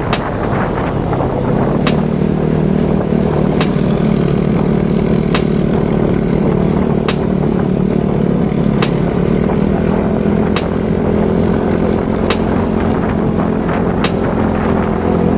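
Motor scooter engine running steadily at cruising speed, heard from on board, with a sharp tick repeating about every second and three-quarters.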